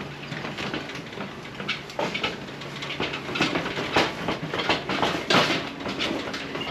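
Irregular clattering and knocking, like equipment being handled, over a steady low hum, with the loudest knocks about four and five and a half seconds in.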